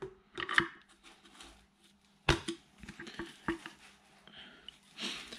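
Light metallic clicks and knocks, a few spaced strokes with the strongest about two seconds in, as a rear shock absorber's top mount and its washer are handled and fitted by hand, followed by a short scrape.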